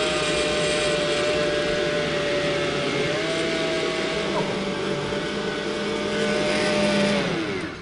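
Kenwood Chef Titanium stand mixer with its blender jug, puréeing soup. The motor runs with a steady whine, then falls in pitch and winds down to a stop near the end as it is switched off.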